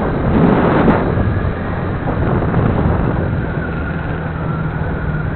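A moving vehicle's engine hums steadily under wind noise rushing over the microphone. About half a second in, the rush swells louder for a moment.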